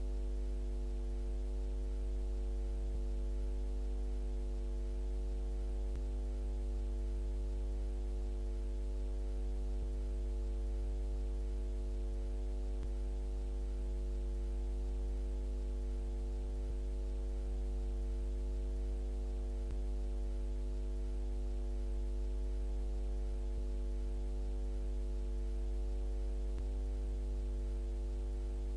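VHS tape playback noise: a steady low hum with a stack of constant tones above it and an even hiss over the top, pulsing faintly about once a second.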